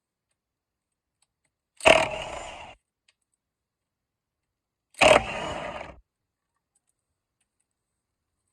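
Two short bursts of mechanical noise about three seconds apart, each about a second long, loud at the start and then fading.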